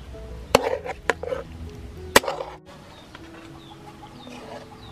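Metal ladle clanking and scraping against a metal wok while stirring chicken in a thick mango sauce: three sharp clanks in the first couple of seconds, then quieter stirring.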